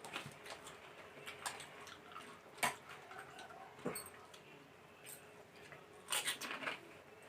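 Mouth sounds of eating pani puri: scattered sharp crunches of the crisp puri shells, with a burst of wet chewing and slurping about six seconds in.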